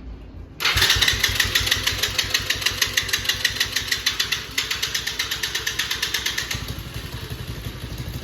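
Four-wheeler (ATV) engine catching about half a second in and running with a quick, even putter, easing down near the end. It is the first start after two or three months of storage, got going with outside help because of a faulty battery.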